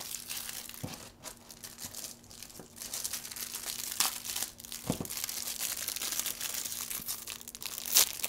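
Plastic packaging crinkling and rustling as it is cut and torn open with a pocket knife, with a few sharp taps along the way; the loudest crinkle comes near the end.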